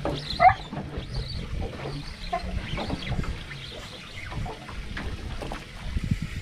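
Water sloshing and lapping against a boat hull, with scattered small clicks. A short, wavering high-pitched call about half a second in is the loudest sound.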